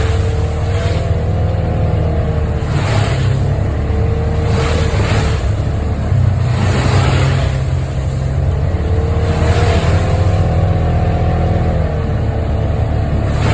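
Off-road vehicle driving: a steady low engine drone with a whine that rises and falls in pitch, and a rushing swell every second or two.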